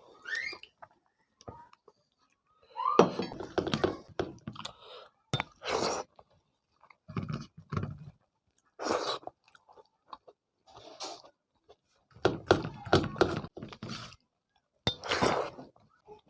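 Close-up chewing of a mouthful of rice with dal and vegetable curry, in short irregular bursts separated by brief pauses.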